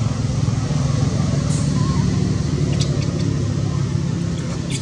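A motor vehicle engine running steadily, a low rumble, with a few faint clicks on top.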